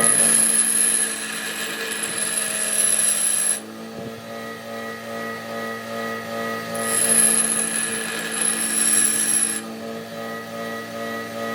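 A power tool's motor hums steadily while metal is cut in two spells of about three seconds each, a high hissing scrape at the start and again about seven seconds in.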